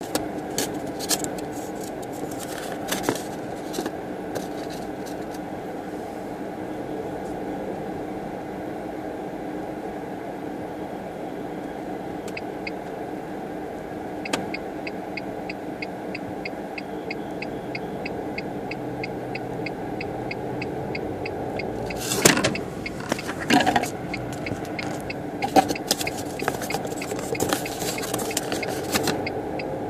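Inside a car driving slowly: a steady engine and road hum. From about twelve seconds in there is a faint, evenly spaced ticking, and about two thirds of the way through come a few loud knocks and rattles.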